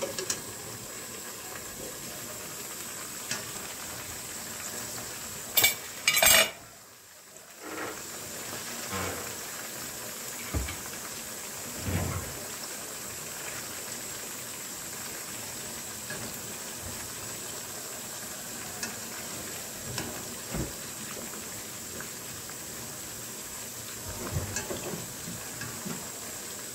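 Mixed vegetables frying in hot oil in a frying pan: a steady sizzle, with a wire skimmer knocking and scraping against the pan now and then. About six seconds in there are two loud sharp clicks, and the sizzle briefly drops away.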